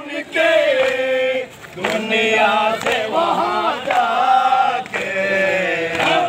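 A group of men chanting a nauha, a Shia mourning lament, together in long held phrases, with a short break about one and a half seconds in.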